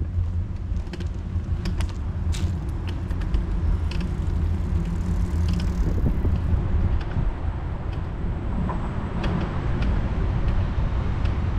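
City street sound from a moving bicycle: a steady low wind rumble on the microphone over road traffic noise, with scattered light clicks.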